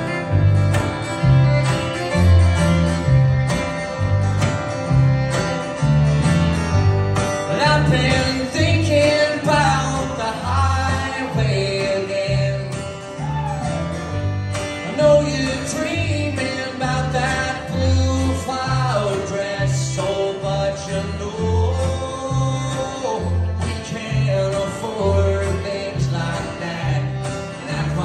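A live acoustic country band playing: fiddle, strummed acoustic guitar and upright bass, the bass thumping out an even line that alternates between two low notes, with a bending melody line over it through the middle.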